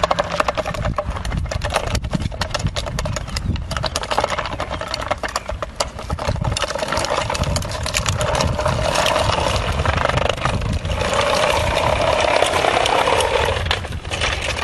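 Hard plastic wheels of a child's four-wheeled ride-on toy rolling over paving stones, a continuous rattling clatter of small clicks.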